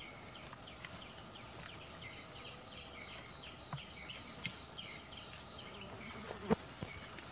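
Steady high-pitched insect drone, with small repeated chirps in the first few seconds and a few short knocks, the sharpest about six and a half seconds in.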